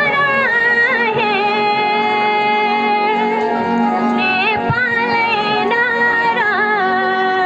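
A girl singing a Nepali patriotic song into a microphone through a PA loudspeaker, holding long, wavering notes over a music accompaniment.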